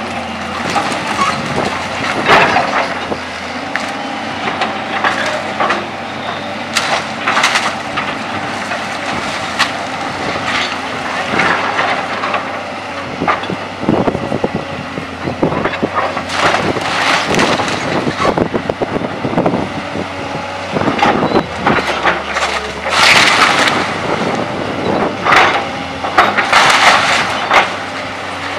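Volvo tracked excavator's diesel engine running steadily while the machine crunches through the timber roof and walls of an old wooden building: repeated cracking, snapping and splintering of wood, with a cluster of loud crashes near the end.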